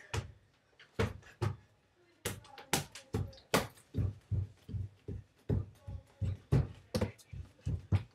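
A child's feet and hands thumping on the floor as she tumbles and jumps about, a string of uneven thuds roughly two a second.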